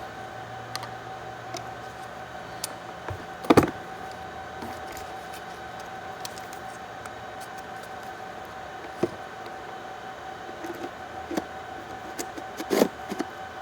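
Light, scattered clicks and small knocks from handling laptop hardware, with one louder knock about three and a half seconds in and a few quick clicks near the end, over a steady high hum.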